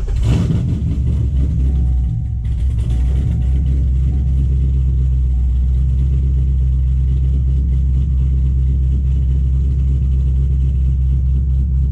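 A Corvette's V8 engine just after catching: the revs flare at first, then drop back about two seconds in to a steady idle. The car starts and runs, which the owner takes to mean the bent-up fuel pump relay tab now makes good contact.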